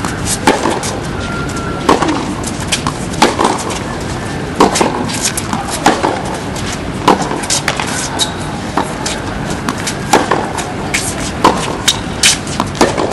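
Tennis balls being struck with racquets and bouncing on a hard court: sharp pops about once a second, over a steady hiss.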